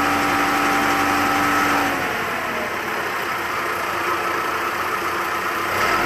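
Engine of a tracked aerial lift running with a steady whine. About two seconds in the note drops away and the machine runs a little quieter, then it comes back up near the end as the boom positions the bucket.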